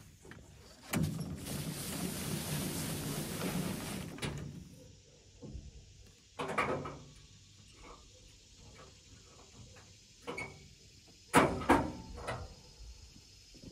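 Dump trailer's roll tarp being pulled over the load: a few seconds of rustling and scraping as the tarp arm swings across, then scattered knocks and thuds, the loudest two close together near the end.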